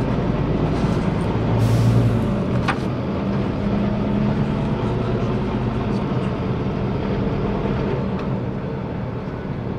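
Scania DC9 five-cylinder diesel engine of a city bus running steadily under way, heard from inside the passenger cabin, with a short hiss about a second and a half in.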